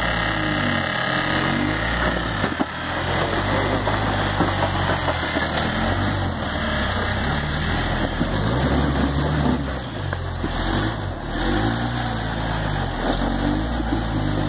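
Lifted Jeep Cherokee XJ's engine revving up and down under load as it crawls up a steep rocky ledge, its pitch rising and falling several times.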